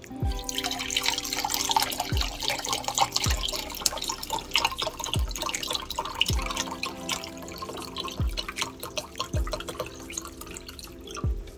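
Chicken broth pouring from a carton into a pot of stew, splashing steadily into the liquid, tapering off near the end.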